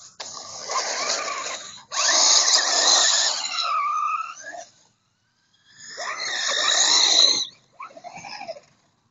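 S911 RC monster truck's electric motor whining in four bursts of throttle, the pitch gliding up and down, with the tyres churning through slush and snow.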